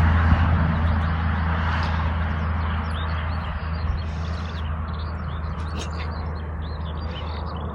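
A passing vehicle's low rumble fading steadily away, while small birds chirp in quick short calls.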